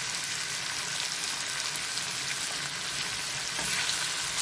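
Minced meat and onions sizzling in a frying pan while a wooden spatula stirs in fresh parsley: a steady frying hiss that grows a little louder near the end.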